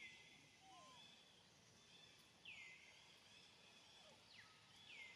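Faint outdoor animal calls: a call that slides down and then holds briefly, repeated three times about two and a half seconds apart, with softer short rising-and-falling notes in between.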